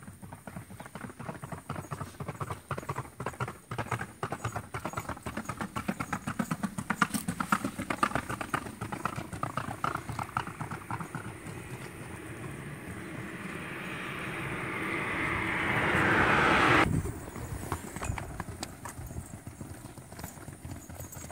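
Hooves of a ridden two-and-a-half-year-old colt clip-clopping steadily on an asphalt road. A rushing noise swells over several seconds, becomes the loudest sound and cuts off suddenly about seventeen seconds in.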